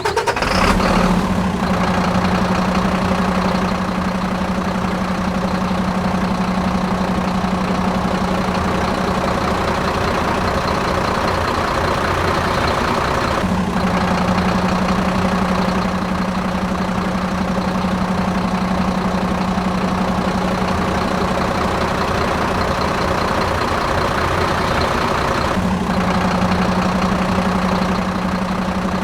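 Steady engine running sound with a low hum, broken briefly about every twelve seconds as it starts over.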